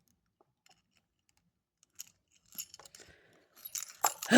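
Lock picks working inside a Brinks padlock: faint small metallic clicks and jingles, starting about two seconds in and coming more often near the end.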